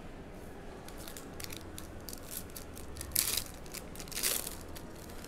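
Foil wrapper of a Donruss basketball card pack being torn open and crinkled: small crackles and clicks of handling, with two louder rips about three and four seconds in.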